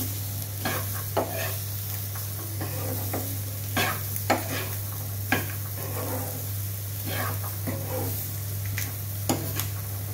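Metal spatula stirring and scraping spiced boiled black chickpeas in a frying pan, in irregular strokes of a few a second against a light sizzle. A steady low hum runs underneath.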